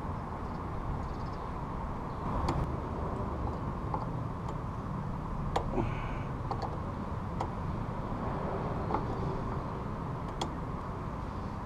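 Scattered small metal clicks of needle-nose pliers and tweezers working the lock clip on a motorcycle footpeg's pivot pin, a few separate ticks over a steady low background hum.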